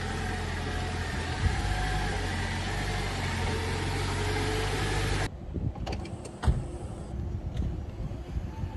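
Jeep Wrangler 4xe Rubicon running steadily as it crawls slowly through a deep rut on a dirt trail. About five seconds in, the sound cuts off abruptly to a quieter background with a few sharp knocks.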